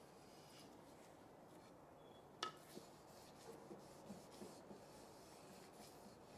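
Faint rubbing of a cloth over a wooden spatula, with one sharp click about two and a half seconds in and a few soft ticks after it.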